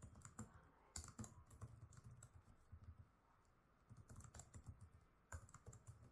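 Faint computer keyboard typing: quick, irregular keystrokes, with a pause of about a second near the middle.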